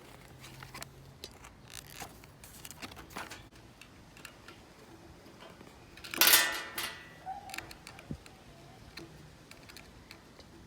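Handling noises from unboxing a product: small clicks and rustles of packaging and parts being handled, with one louder, half-second rustle about six seconds in.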